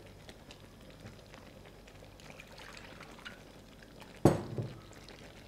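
Liquid poured from a bowl into a steel pan of green curry, a faint splashing pour, with a sharp metallic knock of the spoon against the pan about four seconds in.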